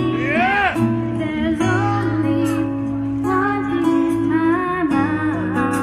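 Live band performing a song: a woman singing into a microphone, with held and gliding notes, over electric guitar.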